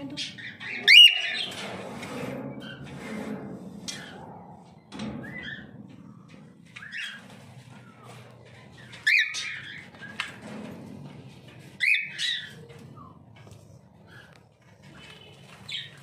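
Pastel-face cockatiel calling and chirping: a loud call about a second in, two more near nine and twelve seconds, and softer chirps between them.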